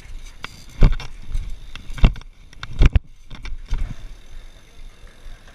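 BMX bike rolling on concrete pavement, rattling, with four sharp knocks from the bike about a second apart before it settles into quieter rolling.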